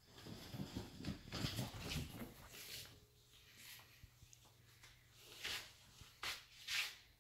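Siberian huskies scrambling about on a leather sofa. There is irregular scuffling of paws and claws on the leather for the first few seconds, then a few short, sharp noises near the end.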